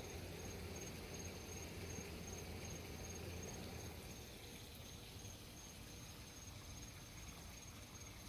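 Faint outdoor background: a steady high-pitched insect trill, with a low hum that fades out about four seconds in.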